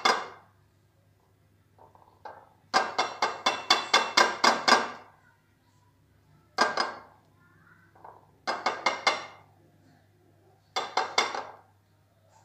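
A glass mixing bowl clinking in quick runs of sharp knocks, about five a second, four runs with pauses between, as hands toss and shake floured chicken pieces against it.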